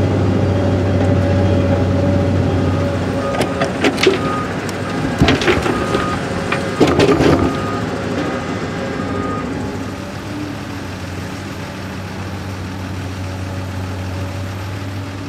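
Diesel engine of a Komatsu PC 210 LC hydraulic excavator running steadily while it digs and loads gravel. In the middle comes a run of sharp clattering knocks from the bucket and stones, and short faint beeps sound now and then.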